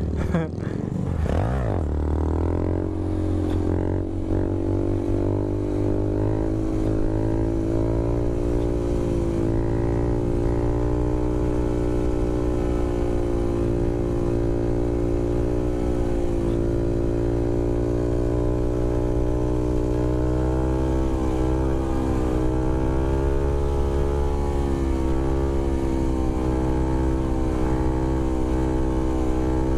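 Honda Grom's 125cc single-cylinder engine revving up over the first couple of seconds, then held at steady high revs with a slight waver through a long wheelie. The rider feels the revs are getting high for an engine that may be low on oil in the heat.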